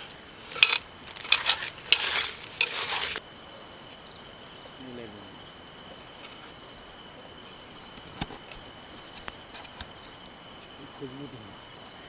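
Crickets chirping in a steady high trill. For the first three seconds it sits under the squelching and clicks of a hand mixing spiced mutton in a clay pot; later come a few single sharp pops from the campfire.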